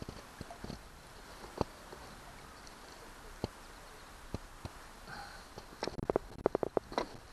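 Sharp knocks and taps of a landing net and a handled shad against a plastic kayak: a few scattered ones, then a quick flurry about six seconds in.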